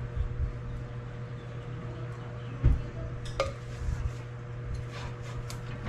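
Metal clanks and clinks from tools and steel suspension parts being handled during a strut job: a dull knock a little before the middle, a ringing clink just after, and a few sharp clicks near the end, over a steady low hum.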